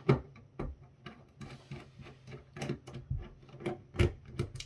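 Irregular clicks and knocks from handling a small cooling fan and its rubber shock mount against the sheet-metal chassis and circuit board of an opened network firewall. The sharpest knocks come just after the start and about four seconds in.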